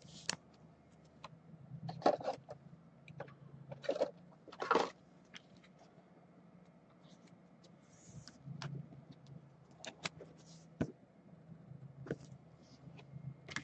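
Trading cards being handled: a series of short rustles, scrapes and clicks, heaviest in the first five seconds, over a faint steady low hum.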